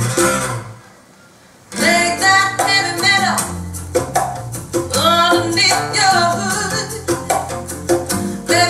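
A vocal song with guitar played back over Verity floor-standing loudspeakers driven by Verity amplifiers. The music drops out for about a second shortly after it starts, then comes back in full.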